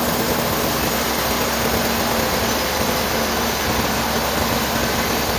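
Sawmill machinery running steadily: an even, loud mechanical noise with a constant low hum underneath.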